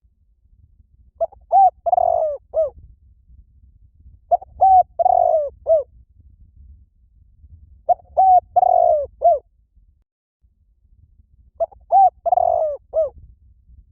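Spotted dove cooing: a short phrase of four or five coos, repeated four times about every three and a half seconds.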